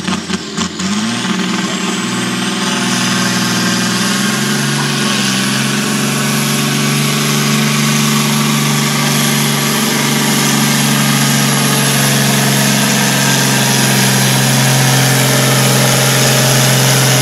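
Massey Ferguson pulling tractor's diesel engine running wide open under load as it drags the weight sled: a steady, loud drone that builds over the first couple of seconds and then holds. A thin high whine rises in pitch in the first few seconds and then stays level.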